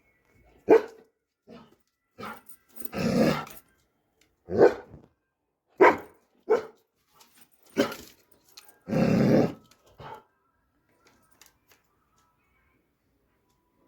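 Doberman barking in a string of short, sharp barks, about ten over the first ten seconds, two of them longer and rougher, around three and nine seconds in.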